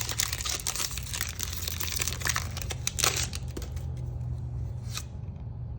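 Foil trading-card booster pack wrapper crinkling and rustling as it is handled and opened, busiest for about the first four seconds, then quieter with one sharp click near the end.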